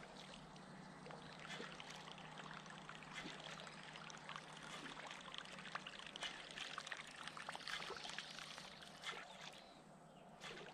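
Faint trickling and lapping of water with many small irregular ticks and drips.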